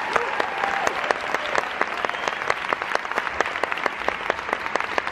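Audience applauding, with dense clapping at a steady level.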